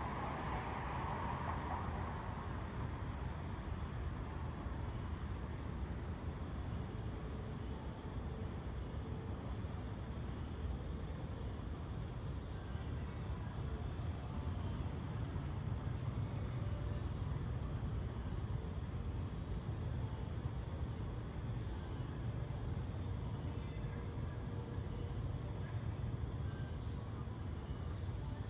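Crickets chirping in a steady, high, rapidly pulsing trill over a low, steady rumble. A faint mid-pitched sound fades out in the first couple of seconds.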